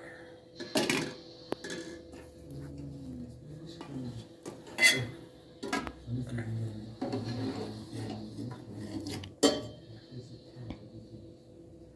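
A metal ladle knocks and scrapes against an aluminium cooking pot and metal bowls as qurut sauce is ladled over bread. There are three sharp clanks, about a second in, around the middle and shortly before the end, with lighter knocks between them.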